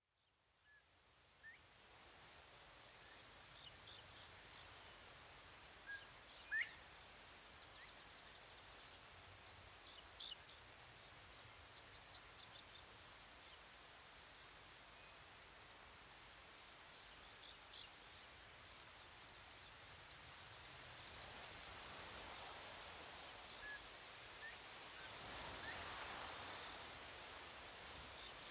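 Faint outdoor ambience that fades in over the first two seconds, dominated by a continuous high-pitched chirping that pulses about twice a second. A few brief higher calls come on top of it, and a soft rustling noise swells near the end.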